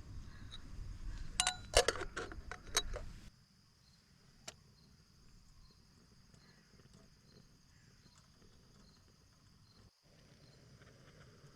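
A few sharp clinks and knocks of camp gear being handled over a low rumble. This cuts off to quiet outdoor ambience, with one more click and a faint high chirp repeating about twice a second.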